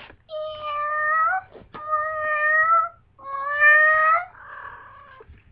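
Domestic cat in heat meowing: three long, drawn-out calls, each about a second, followed by a softer, breathier sound.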